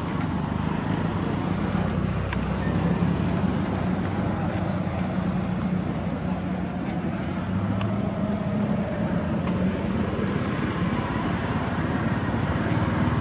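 Steady low hum of a motor vehicle engine running, with traffic noise from the road.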